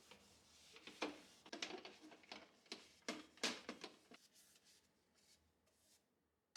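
A quick run of light clicks and taps, like things being handled and set down, for about three seconds, then fading to faint room tone.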